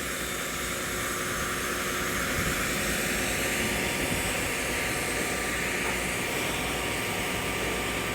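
Excavator's diesel engine running steadily, a whining rush that swells about two seconds in and then holds.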